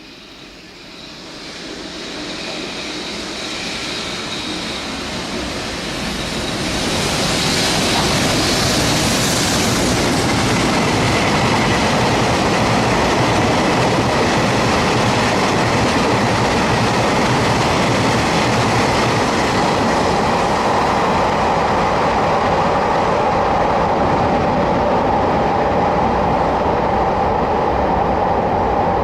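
A long freight train approaching and rolling past, growing louder over the first several seconds, then a steady heavy rumble of wagons on the rails with a clickety-clack and a faint steady tone of wheel squeal on top.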